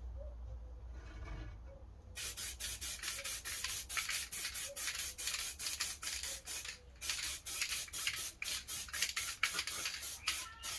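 Paintbrush strokes brushing black Hammerite paint onto a wheel bearing housing (steering knuckle): a quick, rhythmic scratchy scrubbing at about four strokes a second, starting about two seconds in, with a short break near the middle.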